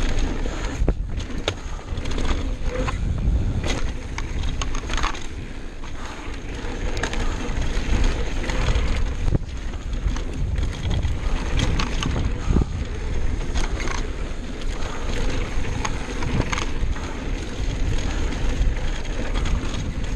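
Mountain bike ridden fast down a dry dirt trail: wind buffeting the microphone over tyres rolling on dirt and gravel, with frequent clicks and knocks as the bike rattles over bumps.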